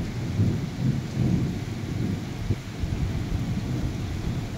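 Rainstorm: rain falling on a street under a low rumble that swells and fades.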